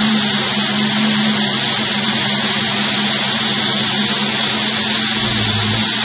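Pickup truck engine running with its tailpipe plugged by a tennis ball and rag: a loud, steady hiss of exhaust forcing its way past the plug, water spitting out with it, over a steady engine hum.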